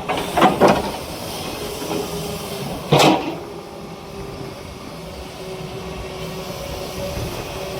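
Excavator engine running steadily, with a loud clattering burst just after the start and a single sharp bang about three seconds in.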